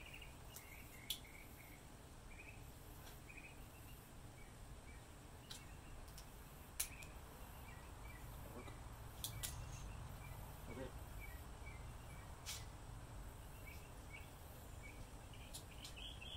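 Quiet background with faint, short high chirps repeating irregularly throughout, broken by a few sharp clicks as the speedometer cable and its metal and plastic end fittings are handled.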